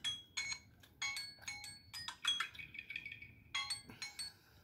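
Smartphone touchscreen sounds as it is tapped: an irregular string of short clicks and plinks, each with a brief ringing tone at a different pitch, stopping near the end.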